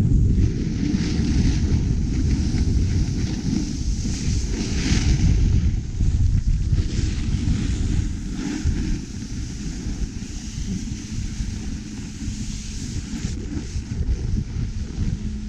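Wind buffeting the camera microphone while riding down a groomed ski run, with the hiss of edges scraping over packed snow that swells on each turn. Both ease off in the second half as the rider slows down.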